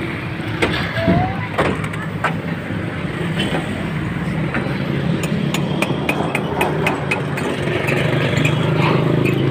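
Engine running steadily, getting somewhat louder toward the end, with a few light clicks and knocks over it.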